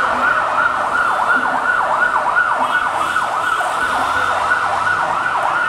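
Emergency-vehicle siren in a fast yelp, its pitch sweeping up and down about three times a second, loud and steady.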